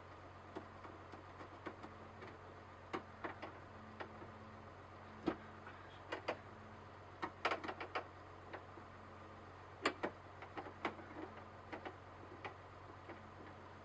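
Irregular sharp clicks and light metallic knocks from an 11 mm socket and wrench working loose a door-handle fastener inside a truck door, some in quick clusters, over a steady low hum.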